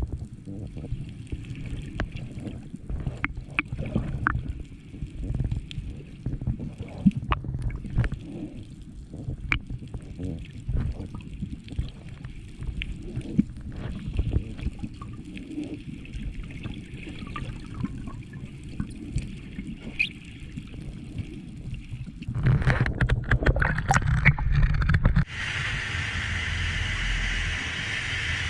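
Water sloshing and gurgling around a GoPro in its housing, muffled, with scattered small clicks. A louder burst of rushing water and splashing comes about 22 seconds in and lasts a few seconds, then gives way to a steady hiss.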